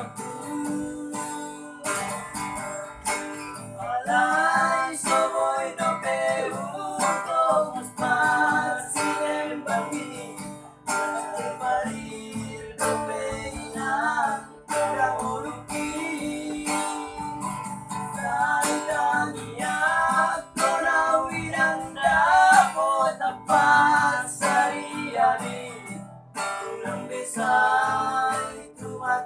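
Acoustic guitar strummed as accompaniment to a singing voice carrying the melody of a Batak song.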